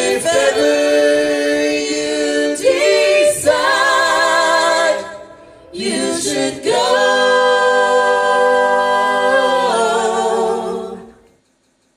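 Several voices singing together in harmony without instruments: two phrases of long held notes with vibrato, the second a long sustained chord that fades out near the end.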